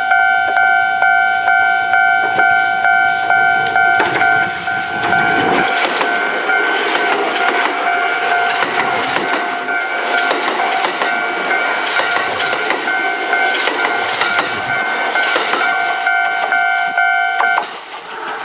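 Level-crossing warning bell ringing about twice a second over Kintetsu electric trains passing each other on the crossing, with wheels clattering on the rail joints. The bell stops near the end.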